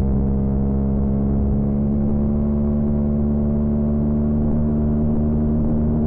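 Honda CB125R's single-cylinder 125 cc four-stroke engine running at steady revs under way, its engine note holding one even pitch.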